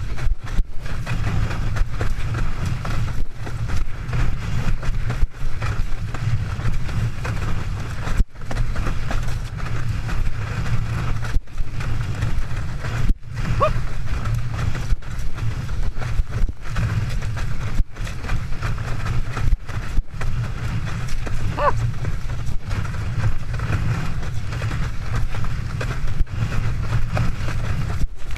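Wind buffeting and water rushing past an action camera worn on a windsurfer planing at speed: a steady, heavy low rush with brief dropouts every second or so.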